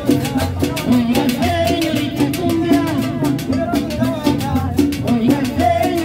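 Live Latin dance band playing salsa-style music: a quick, steady percussion beat with guitar, bass and a sung melody over it.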